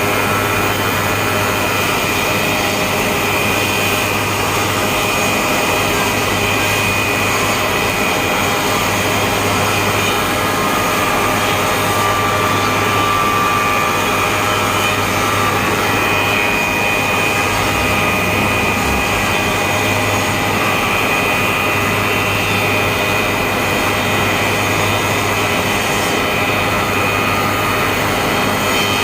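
Six-head wood moulding machine running: loud, steady machine noise with several steady whining tones that hold throughout.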